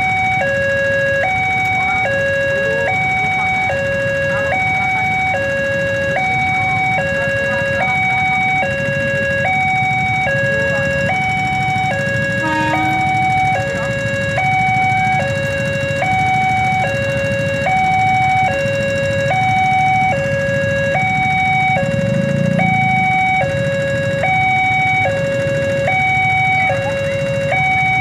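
Railway level-crossing warning alarm sounding: an electronic two-tone signal that alternates steadily between a lower and a higher tone, switching about every three-quarters of a second. Under it runs the low rumble of waiting traffic.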